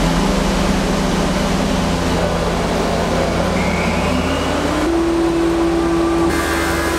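Wood planing machine running with a steady mechanical hum. Its tone rises in pitch about four to five seconds in, then holds steady.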